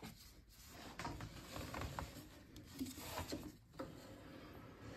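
Faint handling noise: a sleeve and gloved hand rustling and brushing, with a few light knocks, while reaching under a combi boiler for the filling-loop valves.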